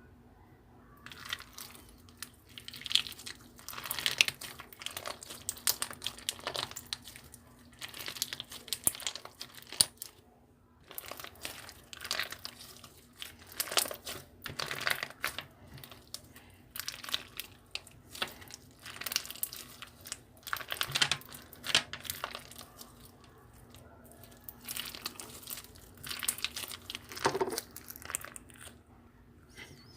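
Slime being squeezed and kneaded by hand, crackling and popping in repeated bouts of a second or two with short pauses between them.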